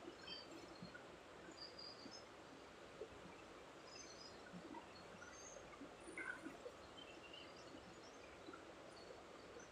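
Near silence: faint background hiss with scattered faint, short high-pitched chirps and a couple of tiny ticks.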